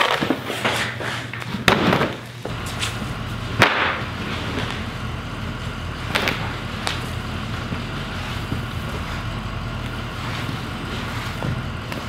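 Knocks and scrapes as an inflatable snow tube and a coiled rope are handled on a concrete garage floor, with a few sharp bangs in the first four seconds. After about two seconds a steady low hum sets in and runs on under them.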